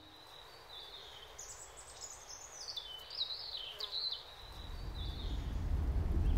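Dusk nature ambience: a high, steady insect trill with birds whistling over it. About halfway through, a low rushing sound starts and swells steadily louder.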